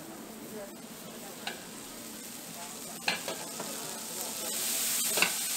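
Squid skewers sizzling on a hot flat iron griddle as they are pressed and turned, with a few sharp clicks of metal on the griddle. The sizzle swells louder and hissier near the end.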